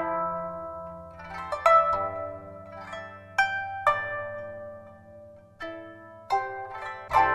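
Guzheng (Chinese plucked zither) music: single plucked notes that ring and die away, over sustained low notes that change every couple of seconds.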